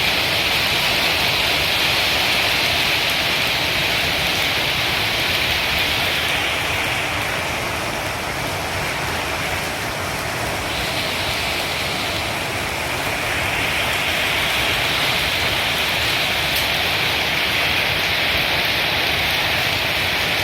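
Heavy rain falling steadily, a dense even hiss that eases slightly about seven seconds in and builds back up a few seconds later.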